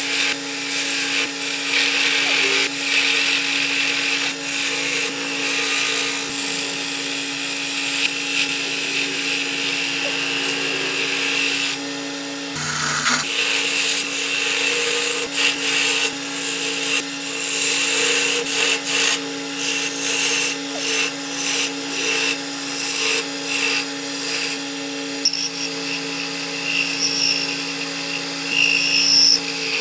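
Wood lathe running with a steady hum while a hand-held turning tool cuts into the spinning wood blank, a harsh scraping hiss that swells and fades with each pass of the tool, coming in quicker pulses in the second half. The hum breaks off briefly about halfway through.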